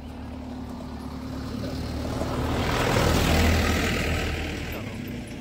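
A motor vehicle passing by, its engine noise swelling to a peak about three seconds in and then fading away.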